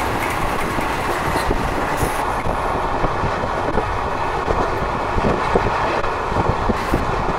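Train running at speed, heard from the carriage window: a steady rumble of wheels on the rails with many short, irregular clicks and knocks.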